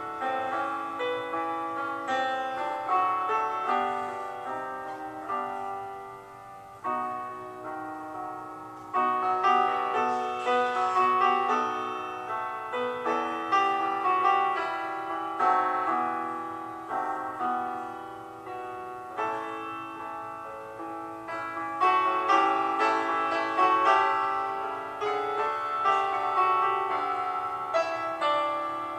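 Piano music: single notes and chords struck in turn and left to ring and fade.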